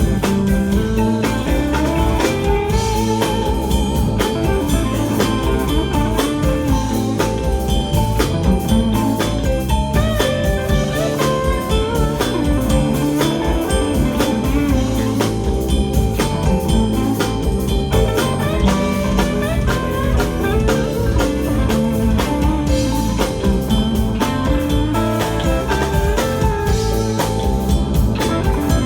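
Live blues band playing an instrumental passage between sung verses: electric guitar over bass and a steady drum-kit beat.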